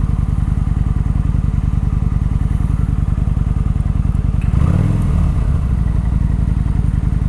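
Kawasaki Vulcan 900 Classic's V-twin idling on its stock exhaust, in a steady, even low pulse, heard through a microphone inside the rider's helmet. A little after halfway the engine note swells briefly, then settles back to idle.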